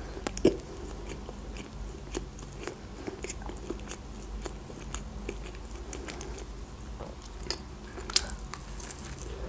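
Close-miked chewing of a McChicken sandwich: a run of small wet mouth clicks and smacks, with a sharper click about half a second in and a crisp bite into the sandwich about eight seconds in.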